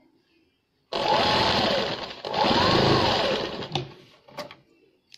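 Sewing machine stitching a seam in two runs of about a second each, its pitch rising and falling as it speeds up and slows down. A couple of sharp clicks follow near the end.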